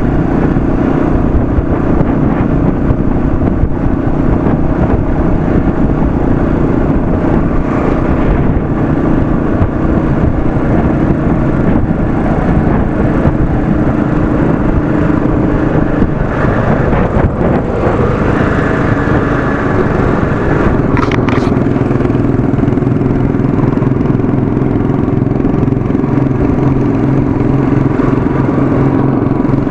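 Royal Enfield Classic 500's single-cylinder engine running at road speed, with wind rushing over the microphone. About two-thirds of the way through, the wind rush eases and the engine note settles lower, as the bike slows.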